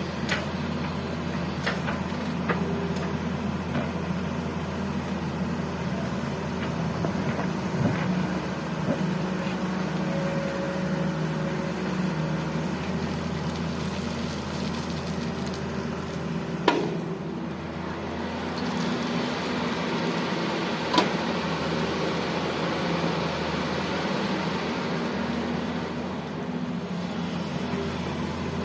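Heavy diesel engines running steadily at a loading site: an excavator working and dump trucks idling. Two sharp knocks stand out in the second half.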